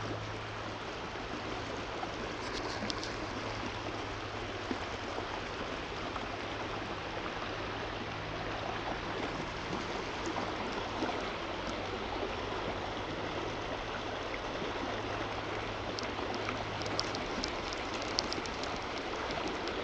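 Flowing water of a trout stream running steadily, with a few faint clicks about two seconds in and again near the end.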